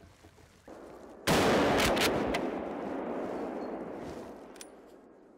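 A single shotgun shot a little over a second in, its report rolling on among the trees and fading over two to three seconds.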